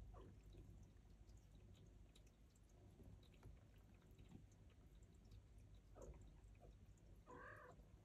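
Faint mews of Turkish Angora kittens crowding at the mother cat to nurse. Short high calls come now and then over a scatter of soft little clicks, with one clearer mew near the end.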